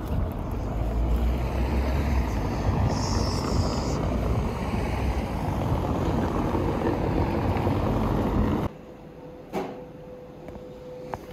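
Wind rumbling on the microphone with outdoor street noise while walking, which cuts off suddenly about two thirds of the way in. After the cut, a quieter room with a steady hum and two short clicks.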